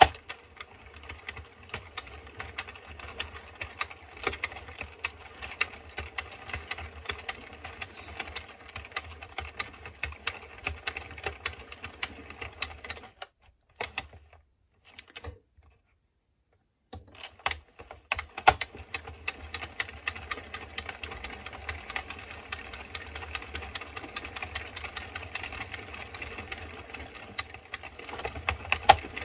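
Addi Express Kingsize circular knitting machine being hand-cranked, its plastic needles clicking and rattling quickly as they knit super chunky yarn. The cranking stops for about four seconds in the middle, then starts again.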